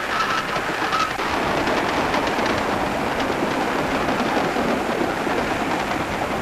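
Steam train running at speed along the track, a steady rushing rattle.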